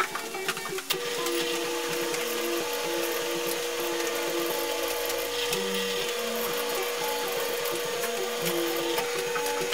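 Drill press running with a steady whine that starts about a second in, its bit slowly cutting through a broken exhaust bolt in an air-cooled VW cylinder head. Background music plays along with it.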